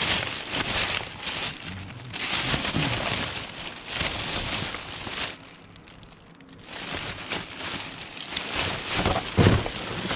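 Plastic bin bags rustling and crinkling as gloved hands rummage through them and the papers and cases inside, in irregular bursts with a brief lull just past halfway.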